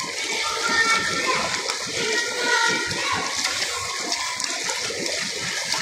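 Pool water sloshing and splashing right beside the phone's microphone, a steady rushing wash of water.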